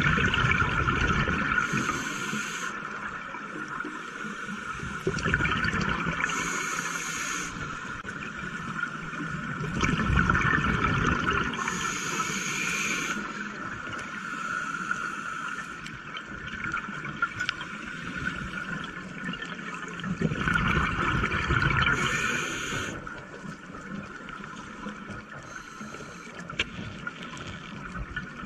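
Scuba diver breathing through a regulator underwater: a short hiss on each inhale and a rush of bubbles on each exhale, repeating every few seconds.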